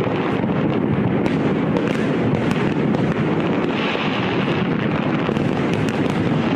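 Fireworks display: a dense, continuous rumble of bursts with a few sharp cracks scattered through it, over wind on the microphone.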